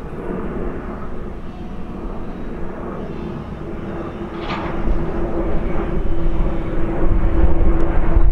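Korean Air Airbus A330 twin-engine jet passing low overhead on approach with its landing gear down. The engine noise grows steadily louder from about halfway through, with a steady droning tone and a deepening low rumble.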